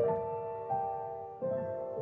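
Slow, sad background music on piano: a chord struck at the start and held, then a new chord about one and a half seconds in.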